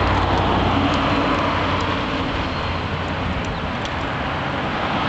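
Steady low rumble of motor-vehicle traffic, with a deep engine hum that eases a little after about three seconds.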